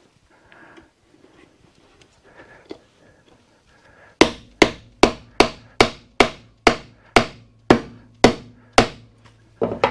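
A wooden board being knocked down onto glued dowels. From about four seconds in there is a run of about a dozen sharp knocks, two or three a second, with one more near the end.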